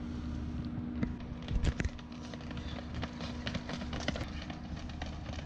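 Running footsteps on brick paving, quick footfalls that grow thicker and louder near the end as a group of sprinters passes close. A steady low hum underneath stops about four seconds in, and there is a single thump about a second and a half in.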